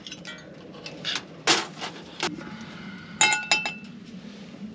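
Steel frying pan being handled and set down on a metal mesh camp table: a string of sharp metallic clanks and clinks. A quick cluster near the end rings briefly.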